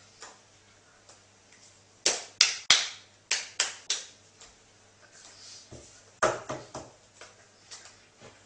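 A run of sharp taps: two quick groups of three, about two and three seconds in, then a tighter cluster of several around six to seven seconds, over a faint low hum.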